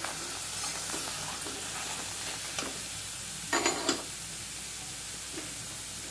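Onions and tomatoes sizzling in a kadai with a steady hiss while a metal spatula stirs in the spice powders, scraping and knocking against the pan a few times just past halfway.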